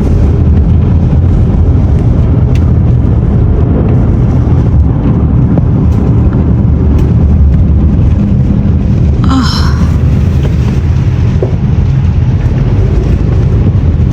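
Loud, steady low rumble, with a short higher-pitched chirp about nine seconds in.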